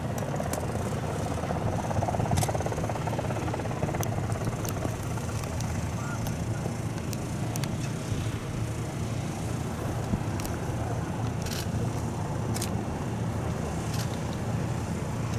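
An engine running steadily at a constant pitch, with a few faint sharp clicks over it.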